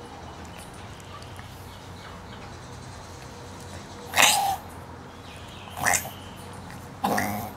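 Chihuahua in a reverse-sneezing fit: three short, harsh, noisy breaths about a second and a half apart, starting about four seconds in, the first the loudest.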